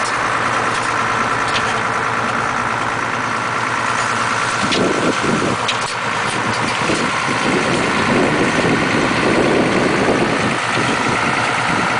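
Diesel engine of a Fendt tool-carrier tractor running steadily while it drives a tractor-mounted vegetable transplanter through the field. It grows louder and fuller from about four and a half seconds in, as the machine comes close.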